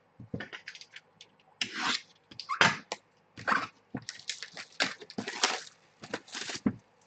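Irregular rustling, rubbing and light clicking from trading cards and their plastic holders and packaging being handled.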